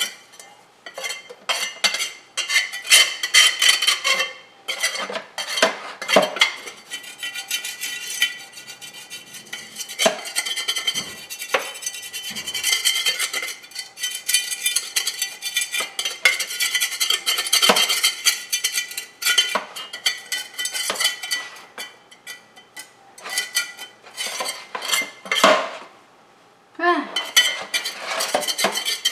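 Repeated scraping and clinking of cleaning work on the floor under a refrigerator: many short, irregular scrapes and clicks, with a brief pause about three quarters of the way through.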